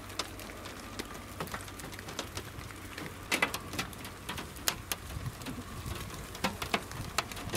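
Raindrops striking glass: irregular sharp taps over a faint steady hiss of rain, a few of them louder.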